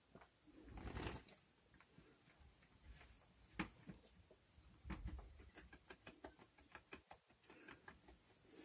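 Faint soft clicks and rustles from a Norwegian Forest Cat kitten and its mother stirring against each other on a sheepskin, with a louder rustle about a second in and a run of quick small ticks in the second half.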